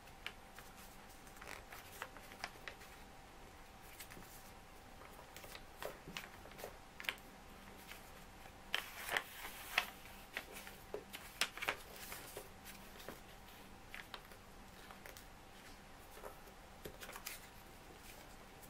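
A sheet of printer paper being folded and creased by hand: scattered soft crinkles, rustles and taps, busiest around the middle, over a faint steady hum.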